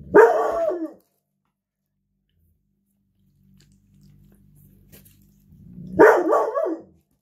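Pet dog barking twice, about five seconds apart, each bark drawn out for under a second; she is barking at a bird she sees.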